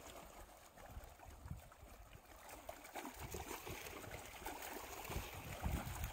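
Small waves lapping and gurgling against the rocky shore, with gusts of wind buffeting the microphone, more strongly toward the end.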